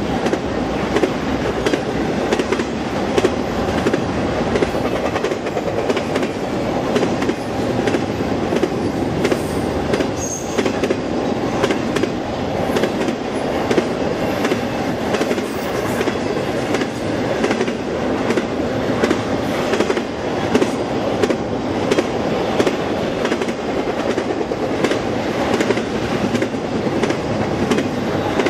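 Double-stack container cars of a Norfolk Southern freight train rolling past at speed: a steady rumble of wheels on rail, with repeated clicks as the wheels pass over rail joints.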